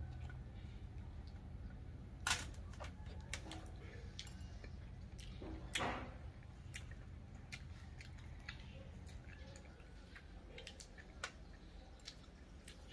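Metal spoon clicking against a balut eggshell and a steel tray while eating, a scattering of sharp light clicks with two louder ones about two and six seconds in, over a low steady hum.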